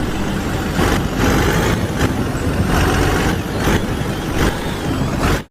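Water spraying hard onto a muddy toy tanker truck to wash it, a loud steady hiss with a low rumble beneath and a slight surging every second or so. It cuts off suddenly near the end.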